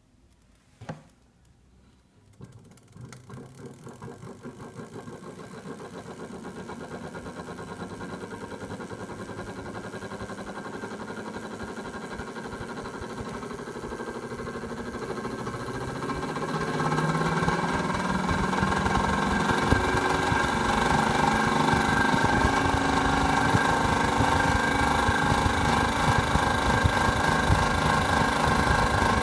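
Large antique electric fan switched on with a click, its motor and blades spinning up. The hum grows louder over the following seconds, steps up again about sixteen seconds in, then runs steadily.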